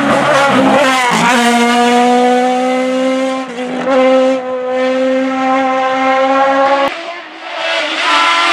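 Suzuki GSX-R1000 inline-four motorcycle engine in a Citroën C2 hillclimb car, revving very high. There are quick rising revs in the first second or so, then it holds a steady high wail for several seconds. It drops away briefly about seven seconds in, then climbs again near the end.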